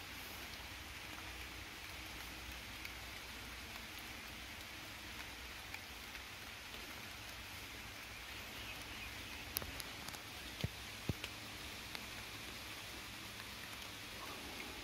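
Steady rain falling on forest leaves, with a few sharp ticks and knocks about two thirds of the way through.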